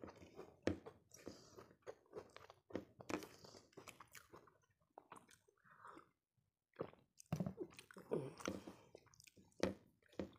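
Close-miked chewing and crunching of a mouthful of food, with wet mouth clicks in an uneven rhythm. About six seconds in, a short gulp as a drink is swallowed from a glass.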